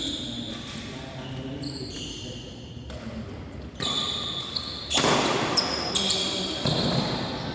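Badminton rally on an indoor court: players' shoes squeaking in short high-pitched chirps and thudding footsteps on the court floor, with a loud burst about five seconds in. The hall echoes.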